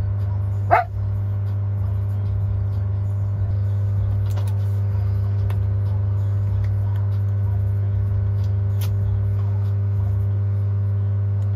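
A Jindo dog gives one short, high yelp about a second in, over a steady low hum.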